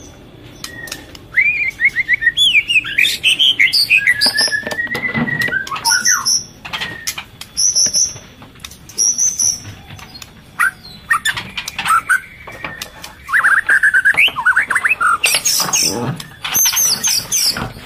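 Murai songbirds calling: a run of varied, quickly gliding whistled phrases mixed with short, repeated high chirps, with a few sharp knocks in between.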